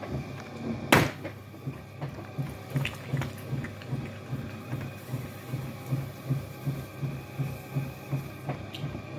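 Potter's wheel spinning while wet clay is thrown on it, with a regular low pulsing about three times a second from the turning wheel. A sharp knock about a second in.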